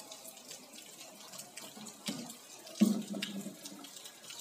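Steady rain falling on a wet open yard, an even hiss with scattered small ticks of drops. A short low-pitched sound stands out about three seconds in.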